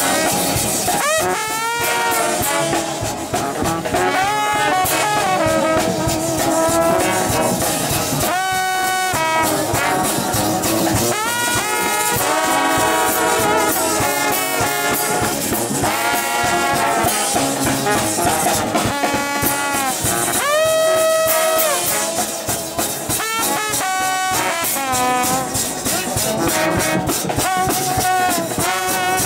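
Brass street band playing: several trombones, trumpets and a sousaphone over a drum kit. The horns slide up and down in pitch over a steady drum beat.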